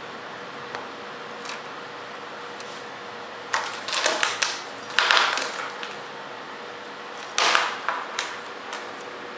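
Small plastic and metal parts being handled on a workbench: bursts of clicking and rattling in three clusters, from about three and a half seconds in, over a steady hiss.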